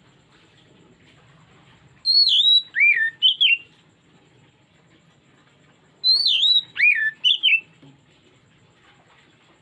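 Oriental magpie-robin (kacer) song: two identical phrases, each about a second and a half of clear whistled notes swooping down in pitch, about four seconds apart.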